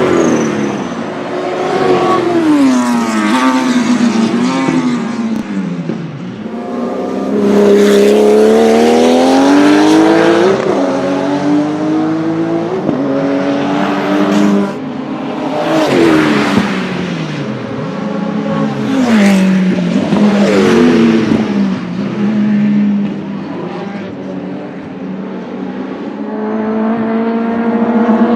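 Porsche 935 race car's turbocharged flat-six engine running hard, its pitch climbing and dropping again and again as it accelerates, lifts off and changes gear.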